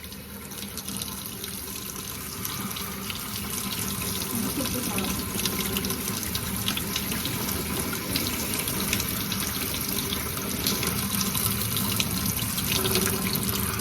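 Tap water running steadily into a sink and splashing as hair is rinsed under it, with small spatters throughout.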